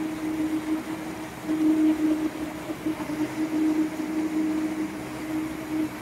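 70-type silage baling and wrapping machine running while chopped straw is fed in: a steady motor hum over a rough mechanical noise that rises and falls.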